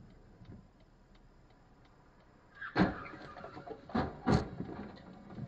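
Faint, regular ticking, then from about three seconds in a clatter of sharp knocks, the loudest three within about a second and a half.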